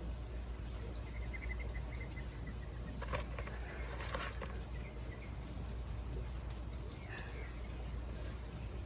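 Faint bird chirps in the background, in a short run of quick notes and again briefly near the end, with two short rustling noises about three and four seconds in over a steady low hum.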